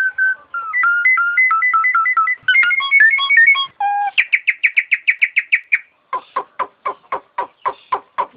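A jalak nias, a bird of the starling and myna family, singing a varied run of clear whistles. It starts with repeated steady notes and two-note phrases, then a fast trill of about six notes a second, and ends with a string of sharp chirps at about five a second.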